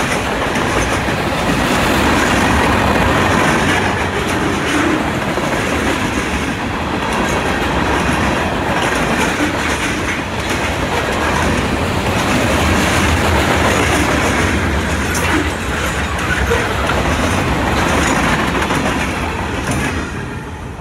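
Freight cars of a Norfolk Southern mixed freight train rolling past, a steady rumble and rattle with wheels clicking over the rail joints. The sound starts to fall away near the end as the last car passes.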